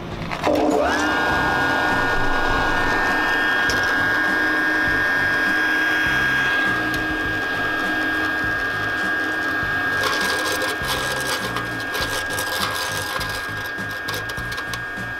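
Yariya pin mill switching on about half a second in: its whine climbs quickly to speed and then runs at a steady high pitch over a noisy hum. From about ten seconds in, a rapid crackle of clicks rides on top of the running mill.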